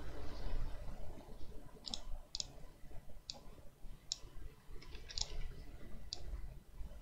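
Computer mouse button clicking: about six sharp, separate clicks, some in quick pairs, spaced roughly a second apart, over a faint low hum.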